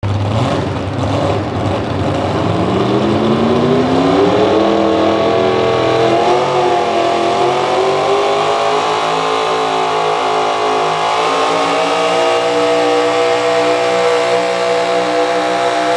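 Small-block gasoline V8 of a modified pulling truck running at high revs under the load of a weight-transfer sled. The engine note climbs over the first few seconds, dips briefly about six seconds in, then holds high and nearly steady.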